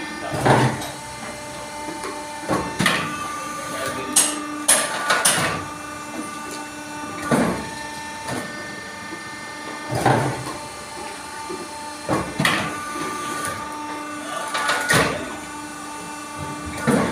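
Four-cavity fly ash brick making machine running: a steady machine hum, broken every two to three seconds by sharp metallic clanks and knocks as the press head, mould and brick pallet cycle.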